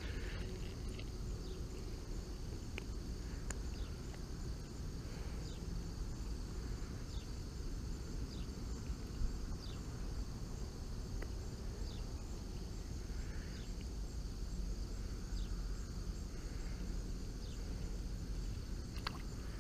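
Outdoor pond-side ambience: a steady high-pitched chorus of insects, with faint short chirps every second or two, over a low rumble of wind on the microphone.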